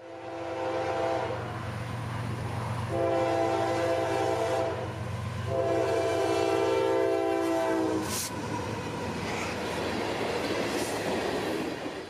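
A CSX freight locomotive sounds its air horn in three blasts, the last the longest, each a chord of several tones over the diesel engine's steady low hum. After the horn, the freight cars roll past with rail and wheel noise and one sharp knock.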